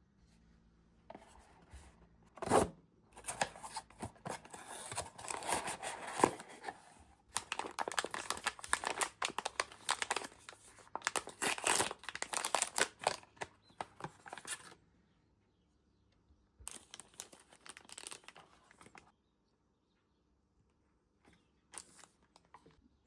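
Blind-box packaging being torn open and crinkled by hand: long stretches of tearing and rustling with one sharp rip near the start, then a shorter spell of crinkling later, and a brief rustle near the end.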